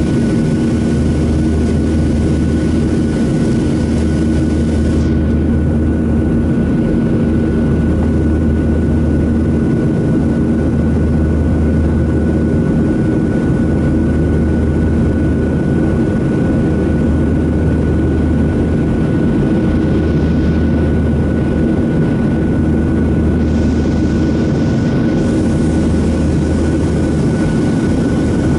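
Boeing 737-700's CFM56-7 turbofan engines and airflow heard from inside the cabin: a loud, steady drone with a constant hum and a low rumble that throbs about every two seconds. The hiss thins for a while about five seconds in and again about twenty seconds in.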